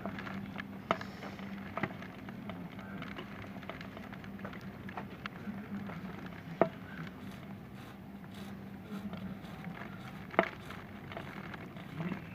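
Rain falling during a tropical storm, with scattered sharp drops tapping on a hard surface, two of them louder about six and a half and ten seconds in; a steady low hum runs underneath.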